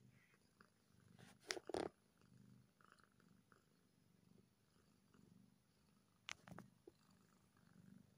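Domestic cat purring faintly, the low purr swelling and fading with each breath. Two pairs of sharp taps or clicks break in, about a second and a half in and again about six and a half seconds in.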